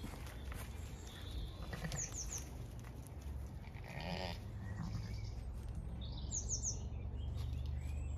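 A Zwartbles sheep bleats once, briefly, about four seconds in. A bird chirps three quick high notes twice, and a low rumble runs underneath.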